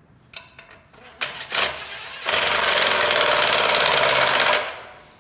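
Harbor Freight 2000-watt portable generator's small gas engine being pull-started: a few rattles and two short bursts as the cord is pulled, then the engine fires and runs for about two seconds before dying away. A failed start, with the choke closed.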